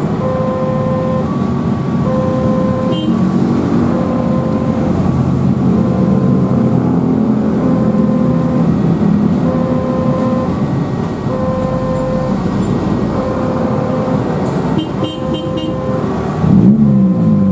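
Railway level-crossing warning alarm sounding, a repeating electronic two-tone signal that comes round about every two seconds, over the steady engine rumble of road traffic. Near the end a louder vehicle sound with a bending pitch rises above it.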